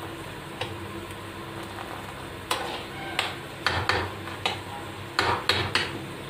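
A steel spoon stirring thickened milk in a wide metal pan, knocking and scraping against the pan in a string of sharp clinks from about halfway through, over a steady low hum.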